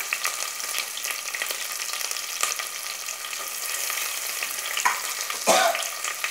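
Shallots, curry leaves and green chillies sizzling in hot oil in an aluminium pressure cooker: a steady crackling hiss. A couple of brief louder sounds come about five seconds in.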